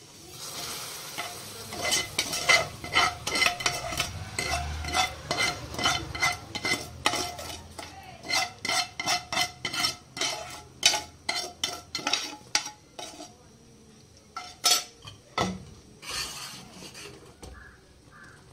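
Metal spoon stirring fried vermicelli into a pot of hot milk, clinking against the pot about twice a second. The clinking stops about thirteen seconds in, with one more sharp knock a little later.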